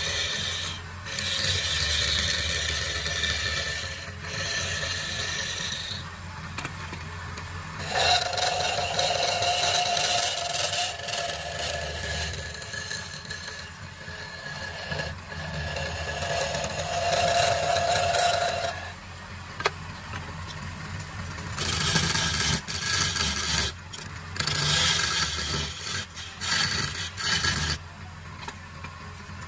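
A wood lathe runs with a steady low hum while a hand-held chisel cuts a spinning wooden vase. The scraping of the cut comes and goes in spells of a few seconds, and twice a steady whine rises over it.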